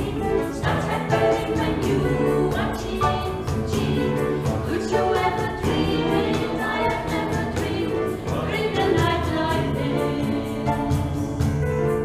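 Mixed vocal group of men and women singing in harmony, with a sustained low bass line and a quick, steady percussive beat under the voices.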